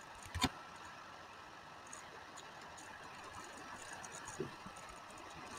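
Faint steady room tone and microphone hiss, with one short sharp click about half a second in and a smaller tap near the end.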